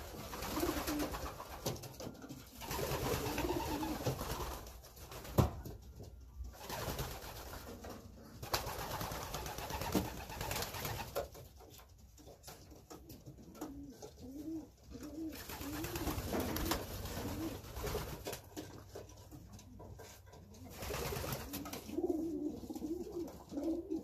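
Racing pigeons cooing, low wavering coos repeating in runs, with a few sharp clicks, the loudest about five seconds in.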